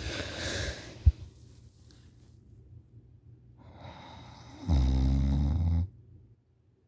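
A sleeping person snoring: a breathy exhale, a sharp click about a second in, then a drawn-in breath that turns into one loud, low, buzzing snore lasting about a second.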